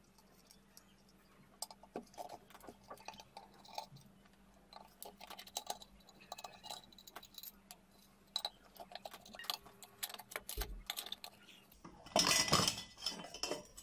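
Small metal clicks and clinks as a ceiling fan motor's hub fittings and wires are handled. About twelve seconds in comes a louder scraping clatter as the motor's metal housing halves are pried apart with a bar from two sides.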